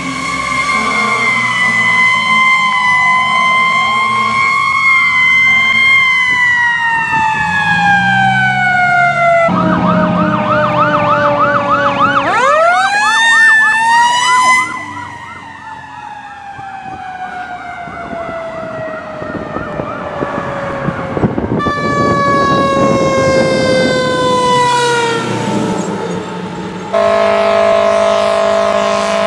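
Fire engine sirens across several short clips: a siren wailing slowly up and down, a fast yelp, and long stretches where the siren winds down in falling pitch. Near the end comes a steady blast on a fire truck's air horn.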